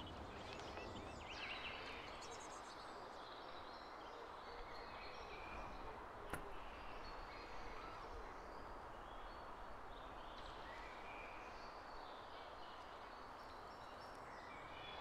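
Quiet woodland ambience: a steady soft background hiss with scattered bird chirps and calls, and a single sharp click about six seconds in.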